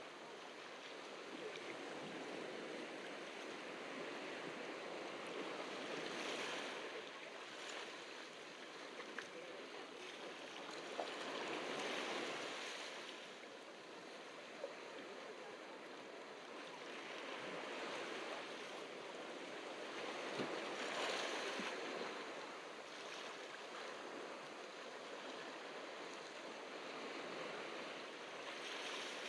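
Ocean surf washing onto a beach: a continuous rush of water that swells and fades as waves come in every several seconds.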